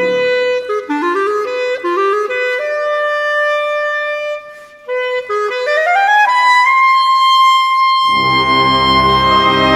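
Solo clarinet playing a series of quick rising runs, pausing briefly, then climbing to a long held high note. About eight seconds in, the brass and full orchestra come in loudly beneath the held note.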